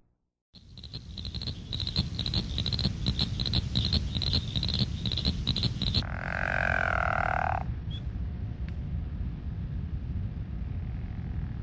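Frogs calling. A rapid run of high-pitched notes, several a second, is followed about six seconds in by a louder, lower buzzing call lasting about a second and a half.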